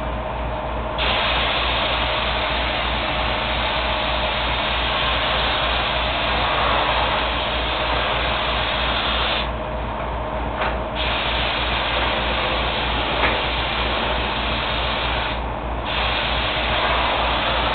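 Binks spray gun hissing steadily as it sprays lacquer onto the car's body, pausing briefly three times as the trigger is let off. A steady low mechanical hum with fast pulsing runs underneath.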